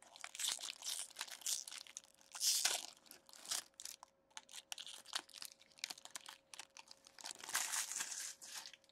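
Foil wrapper of a trading card pack crinkling and tearing as it is peeled open by hand, in irregular bursts, with a faint steady hum underneath.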